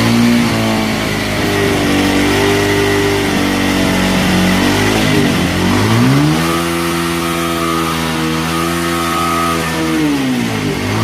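Bajaj Pulsar 150's single-cylinder engine being revved. It rises in pitch about six seconds in, holds high for about four seconds, then drops and picks up again near the end.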